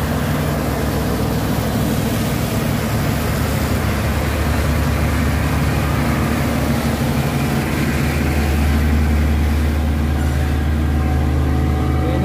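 Heavy diesel trucks passing one after another: a Mitsubishi Fuso tractor-trailer, then a small tanker truck, with the low, steady drone of their engines and tyre noise. The drone grows louder about eight seconds in as another Fuso container truck approaches, trailing dark exhaust smoke under load.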